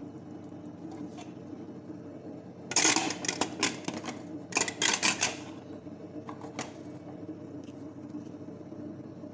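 Stainless-steel pressure cooker lid clattering and clicking as it is set on the pot and locked shut, in two quick bunches of metal knocks, then a few lighter clicks, over a steady low hum.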